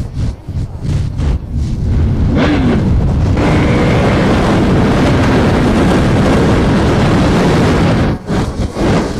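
Yamaha R1M's crossplane inline-four through an aftermarket exhaust, heard from the moving bike with wind on the microphone. A quick rev comes about two seconds in, then a hard pull from about three and a half seconds in with the pitch climbing. The sound drops off sharply near the end.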